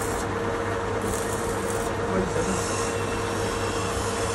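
Metal lathe running with a steady hum as its four-jaw chuck spins a stud. A few brief high scraping noises come from the threading die working on the turning stud.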